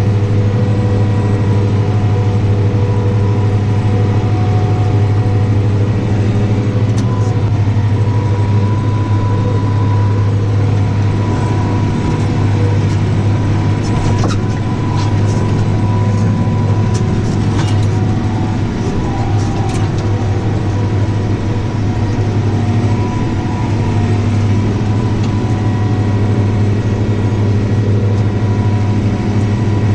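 Tractor engine running steadily under load, heard from inside the cab, as it drives a front-mounted disc mower: a constant low drone, with a scattering of faint ticks in the middle.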